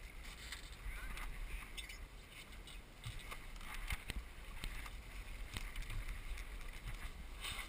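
Wind on the microphone and water along the hull of a Hunter 18 sailboat changing tack, with scattered light clicks and knocks.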